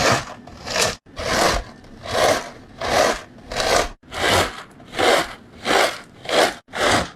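Rhythmic rubbing or scraping strokes, about eleven of them, evenly paced at roughly one every 0.7 seconds, each swelling and fading.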